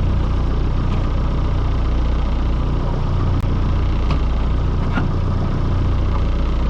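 Fishing boat's engine running steadily with a deep, even hum, and a few faint knocks over it.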